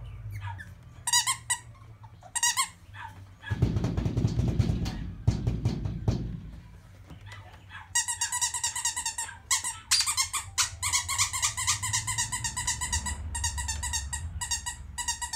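A squeaky plush toy squeezed over and over: a few short high squeaks at first, then near-continuous warbling squeaking through the second half. A low rustle comes a few seconds in.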